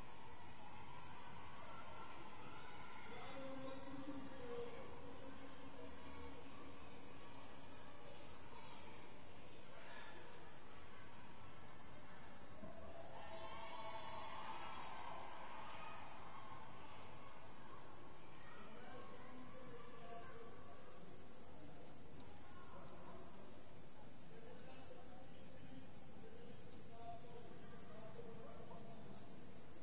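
Crickets chirping in a dense, steady, high-pitched chorus.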